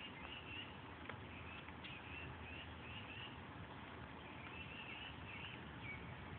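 A bird chirping faintly and repeatedly, about two short high chirps a second, over a steady outdoor hiss, with a couple of soft clicks.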